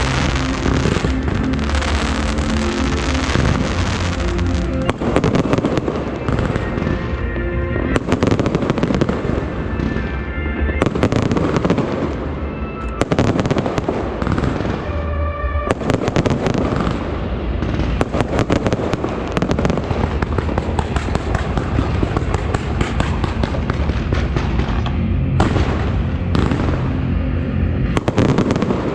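Fireworks going off continuously, dense crackling with many sharp bangs, and music playing underneath.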